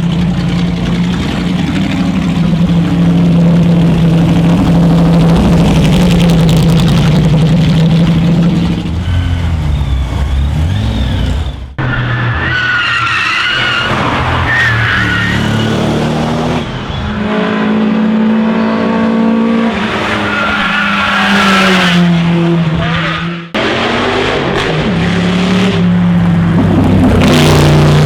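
Racing cars' engines running hard at high revs, in three short clips with abrupt cuts about 12 and 23 seconds in. In the middle clip, tyres squeal as a car corners.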